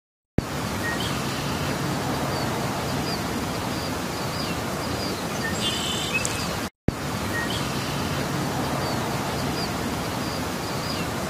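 Outdoor nature ambience: a steady hiss of background noise with small birds chirping now and then. The sound cuts out briefly about halfway, then the same stretch plays again as a loop.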